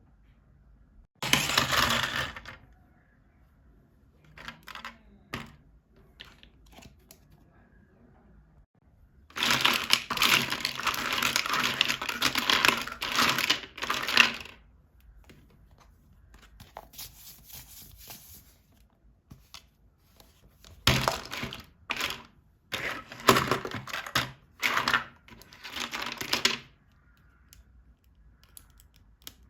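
Toy packaging being crinkled and torn open by hand in several bursts, a short one, a long one, then a quick run of short ones, with small clicks and taps between.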